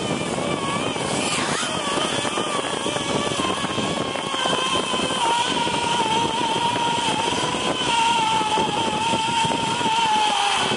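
Zipline trolley pulleys running along the cable: a steady whine over rushing noise, the whine sinking slightly in pitch near the end as the rider slows toward the platform.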